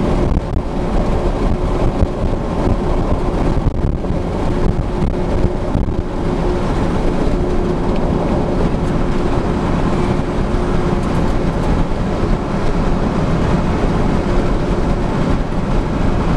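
Steady, loud low mechanical rumble with a faint steady hum running through it.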